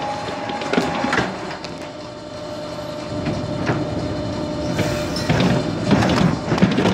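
Commercial spiral mixer kneading bread dough. The motor runs with a steady whine while the hook slaps and knocks the dough against the turning steel bowl. The knocking grows louder and busier over the last couple of seconds.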